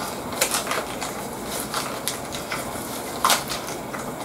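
Close-miked chewing and crunching of crisp fresh lettuce as bites are taken from a burger wrapped in lettuce leaves instead of a bun: irregular crunches, the loudest a little over three seconds in.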